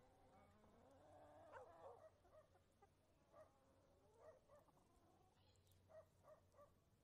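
Faint animal calls: one drawn-out call about a second in, then a string of short calls.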